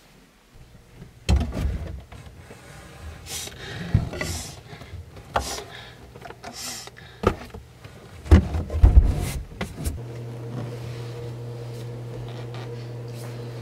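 A kitchen cabinet being rummaged through: a string of knocks and clatters of cupboard wood and plastic spray bottles, loudest a little after the start and again past the middle. About ten seconds in, a steady low hum starts.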